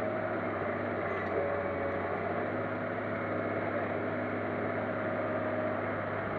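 Heavy diesel engine running at steady revs, the crawler excavator working as it loads soil into a dump truck.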